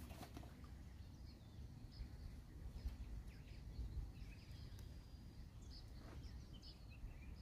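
Faint outdoor ambience: a steady low rumble with a few short, distant bird chirps scattered through it.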